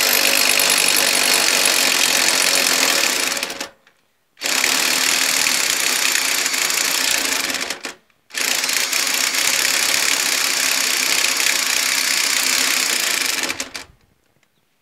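Half-inch cordless impact wrench hammering on the nut of a mower-deck idler tensioner stud, in three long bursts of about four to five seconds with short pauses between. The stud turns with the nut instead of coming out.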